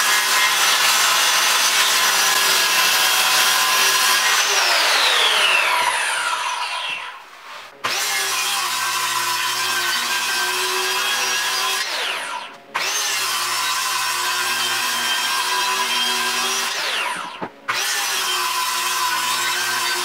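Circular saw ripping plywood into strips, running at full speed. Three times the trigger is let go and the motor whines down in pitch to a stop, then it starts straight up again for the next pass.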